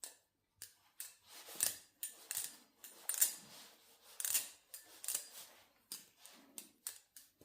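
XDYY Kraken V3 steel balisong (butterfly knife) being flipped: a quick, irregular run of sharp metallic clicks and clacks, several a second, as the handles swing round the pivots and knock together. The pivots are freshly oiled and still breaking in.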